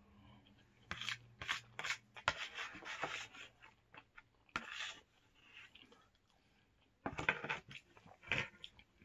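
A utensil scraping and scooping chicken alfredo in a plastic microwave-meal tray, in three bunches of short scrapes and clicks with pauses between them.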